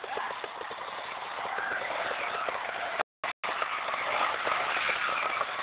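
Trials motorcycle engine running at low revs over rough ground. The sound cuts out briefly about three seconds in.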